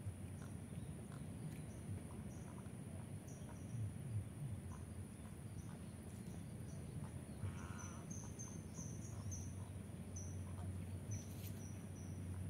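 Outdoor ambience: a steady high-pitched insect drone and short repeated chirps over a low rumble. A brief animal call sounds about seven seconds in.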